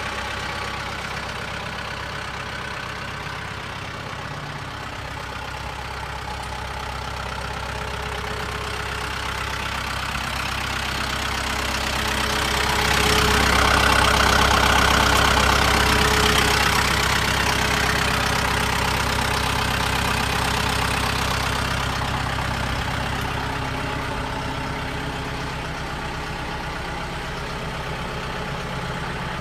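2015 Kubota M7060D tractor's four-cylinder diesel engine idling steadily, louder for a few seconds around the middle.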